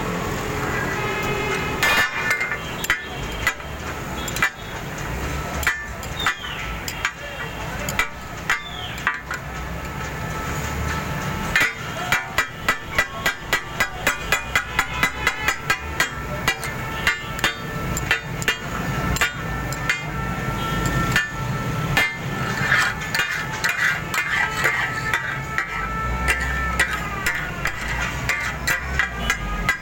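Taka tak: steel spatulas striking and chopping on a flat iron griddle, a metallic clatter. It comes in scattered strikes at first, then in a fast, steady rhythm of about three strikes a second from partway through.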